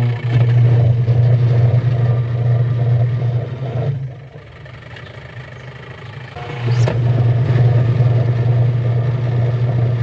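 Single-tub washing machine's electric motor running with a steady low hum, stopping about four seconds in and starting again a couple of seconds later. The motor has been wired with its reverse lead cut, so it turns one way only.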